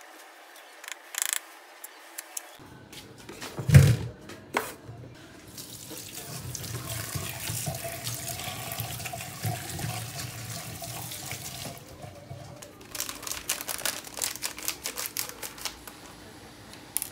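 A knife clicks through potato slices onto a wooden cutting board, and then comes a heavy thump. A kitchen tap runs into a stainless steel sink for about seven seconds as potato slices are rinsed in a mesh strainer. Near the end, plastic crinkles and scissors snip as a snack packet is cut open.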